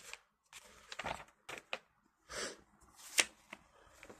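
Quiet, scattered rustling of paper with a few sharp clicks, as a printed catalogue is handled and its pages turned.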